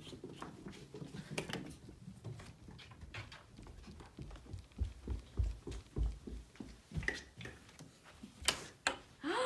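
Footsteps climbing carpeted stairs as a run of low thuds, then a door handle and latch clicking near the end.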